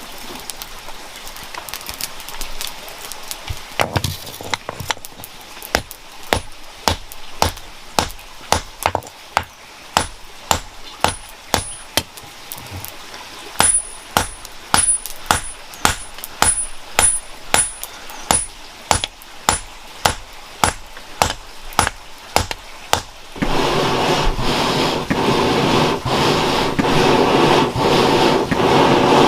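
Hammer striking metal in an even rhythm, about two blows a second, some blows leaving a brief high metallic ring. Near the end the blows stop and a steady rasping noise takes over.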